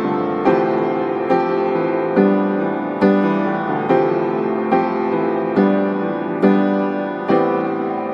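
Background piano music: gentle notes or chords struck at an even pace, a little more than once a second.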